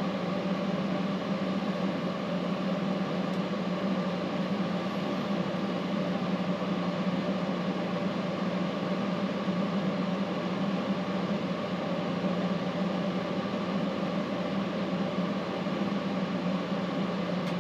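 Steady mechanical hum of a small motor or fan, with a strong low drone and an even hiss over it, unchanging throughout.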